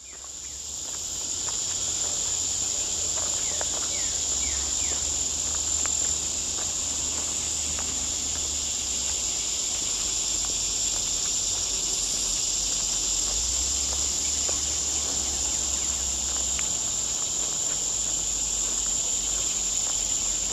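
Steady, high-pitched chorus of insects droning without a break, fading up over the first second or two, with a faint low rumble underneath.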